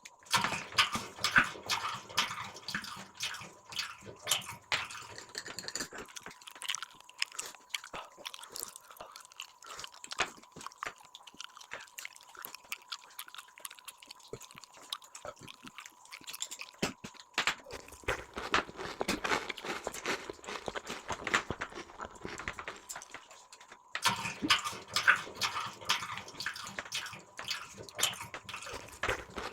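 A person chewing food close to the microphone: wet mouth sounds with many small clicks, changing abruptly a few times.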